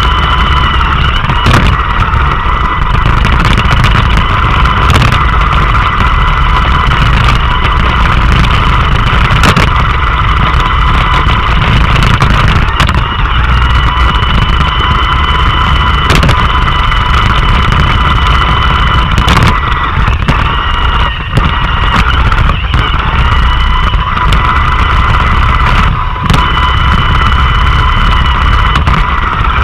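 Roomba robot vacuum running, heard close up from on the robot: a steady whine from its vacuum fan over a low rumble of its brushes and drive, with a sharp knock every few seconds.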